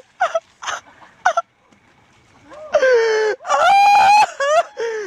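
A young man's voice giving short yelps, then long, loud wailing yells from about three seconds in, the first sliding down in pitch: cries of shock after breaking through thin ice into freezing water.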